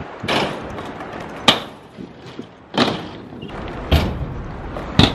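Freestyle scooter wheels and decks hitting concrete ramps: a series of sharp clacks and thuds about a second apart over rolling noise, with the heaviest thud about four seconds in.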